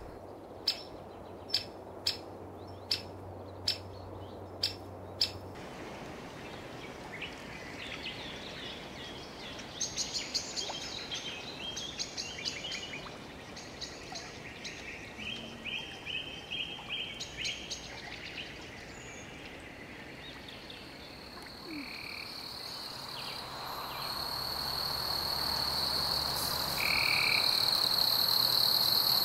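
Outdoor wilderness ambience of animal calls: a run of about eight short, sharp calls evenly spaced over the first five seconds, then a stretch of high chirping calls, and from about two-thirds of the way through a steady high trill that grows louder.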